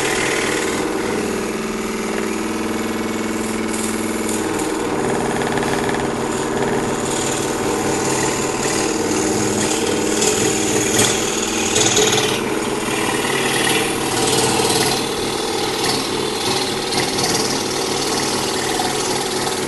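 Electric scroll saw running steadily with its blade cutting through wood.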